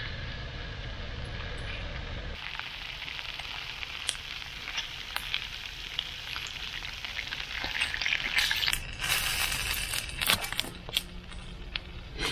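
Sausages and green peppers sizzling in a frying pan over a wood-fired hobo stove, with the fire crackling; the sizzle grows louder about eight seconds in.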